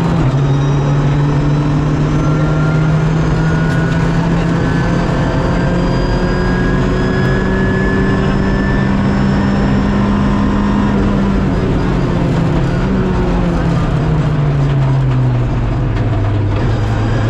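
Rally car engine pulling hard in a high gear, heard from inside the cockpit: a quick gearshift just after the start, then the engine note climbs slowly for about eleven seconds. It drops away as the driver lifts off a couple of seconds before the end, then starts climbing again.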